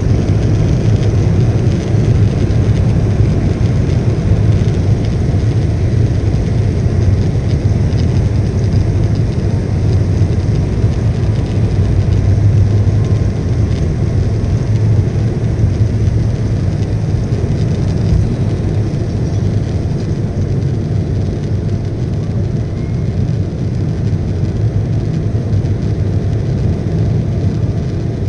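Jet airliner cabin noise during the takeoff roll: the engines at takeoff power give a steady, loud, low rumble. It eases slightly in the last third as the plane climbs away.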